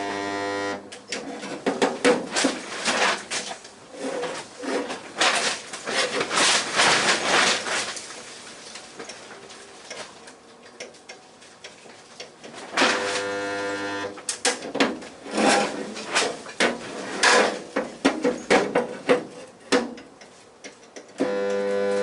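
Resistance spot welder buzzing steadily for about a second at a time as it makes a weld, three times: at the start, around the middle, and near the end. Irregular clattering and scraping come in between.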